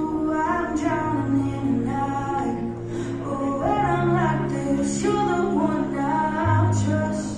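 A pop song with a sung vocal, played as posing music over the hall's loudspeakers; the melody moves over long held bass notes.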